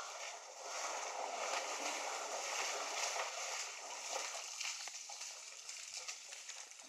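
African elephants drinking at a waterhole: irregular sloshing and splashing of water, heaviest in the first half.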